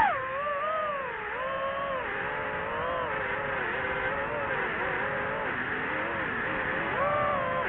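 DJI FPV drone's motors whining. The pitch drops sharply at the start as the throttle is eased, wavers up and down with small throttle changes, and jumps up again briefly near the end.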